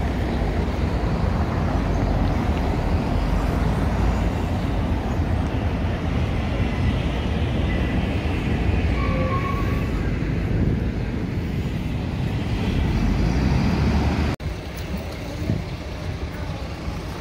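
Outdoor city street ambience: a steady low rumble of traffic, cutting off abruptly about fourteen seconds in and going on a little quieter after.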